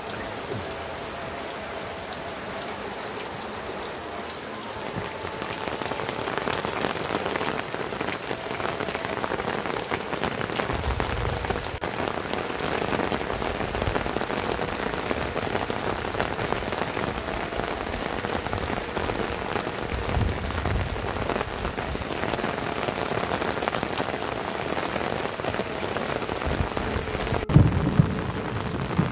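Heavy rain falling on tiled roofs and the ground, with water running off the eaves; the downpour grows louder about five seconds in. A sharp knock near the end.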